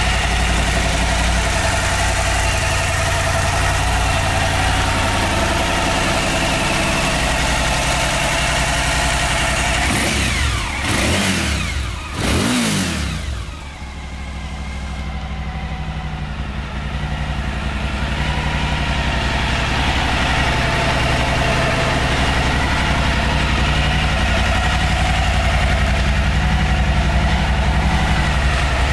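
Suzuki V-Strom 1000's V-twin engine idling steadily, blipped twice near the middle with the revs rising and falling quickly before it settles back to idle.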